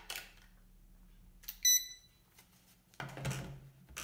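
A few clicks from handling plastic RC gear, then one short electronic beep about one and a half seconds in, the power-on beep of the RC radio gear. A low steady hum with further clicks comes in about three seconds in.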